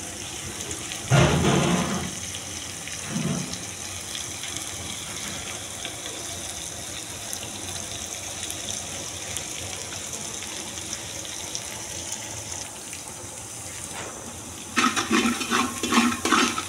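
Sliced onions frying in oil in a large metal pot, a steady sizzle, with a brief thud about a second in. Near the end a ladle stirs the onions, scraping and knocking against the pot.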